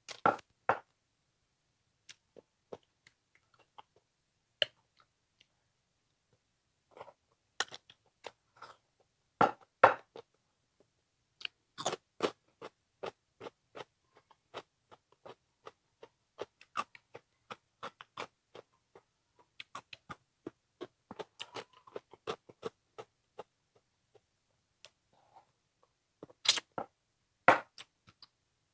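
A person chewing and crunching mouthfuls of turmeric-braised frog: irregular short crunches and mouth clicks, with louder bites about ten and twelve seconds in and again near the end.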